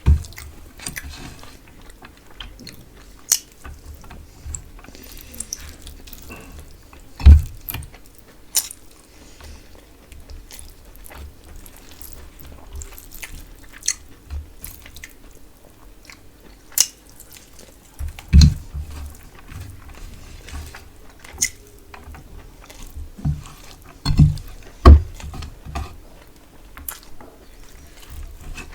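Close-miked eating of fish curry with rice and cauliflower fry: wet chewing and biting with many small crunchy clicks, broken by a few louder low thumps.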